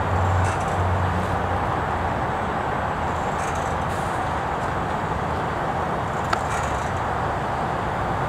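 Steady engine-like running noise from the truck and its crane hoist, with a low hum that drops away about a second in. A single sharp click comes about six seconds in.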